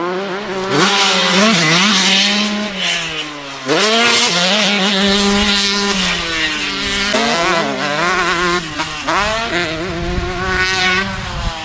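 KTM 125 single-cylinder two-stroke dirt bike engine revving hard, its pitch climbing sharply and then holding high, dipping and climbing again about four times as the throttle is opened and closed.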